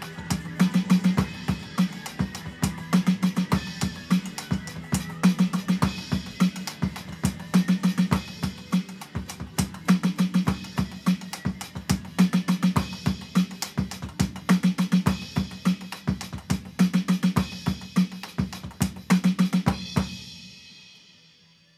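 Electronic drum kit playing a busy hard-rock groove with fast fills over a backing track with guitar. About 20 seconds in it all stops on a last hit that rings out and fades away.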